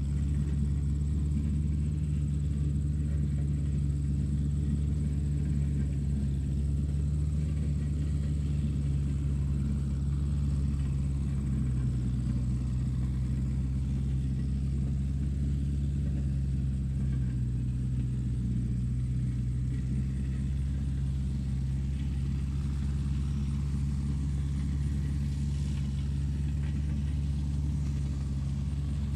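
A steady low mechanical rumble like a running motor, with a thin high whine over it, unchanging throughout.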